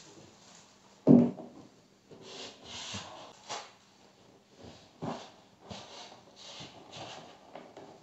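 Handling of self-adhesive flexible plastic quarter round: short, scattered bursts of rustling and rubbing as the backing is peeled back and the trim is pressed down by hand. One sharp knock about a second in is the loudest sound.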